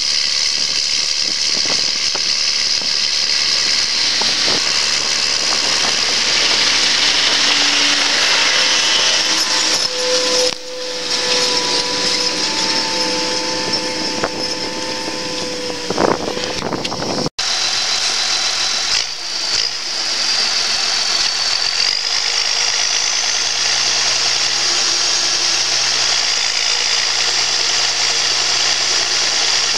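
New Holland tractor engine running as it pulls a precision seed drill toward and past close by, with a machinery whine that is strongest about halfway through as it passes. After an abrupt cut about two-thirds of the way in, a New Holland tractor's engine running steadily, heard from the front of its bonnet, as it drives between rows of young maize.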